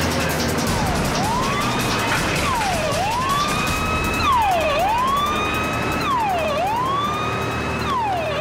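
A police siren wailing. Each cycle drops quickly in pitch and then climbs slowly back up, repeating about every two seconds. It starts about half a second in, over a low steady drone.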